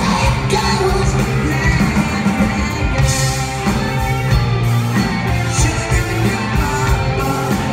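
Rock band playing live through a concert PA: guitars, drums and a lead singer, all loud and steady.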